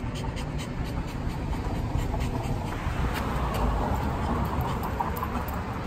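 Pomeranian panting over street noise with a low rumble, and a vehicle passing by about three seconds in.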